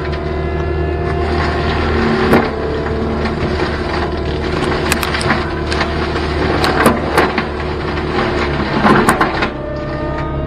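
Cat 289D3 compact track loader's diesel engine running under load, driving a Gyrotrac 500HF forestry mulcher head that is shredding thick brush. Sharp cracks and snaps of wood being chewed up break through the steady drone, clustered a few seconds in and again past the middle, and the engine note dips briefly near the end.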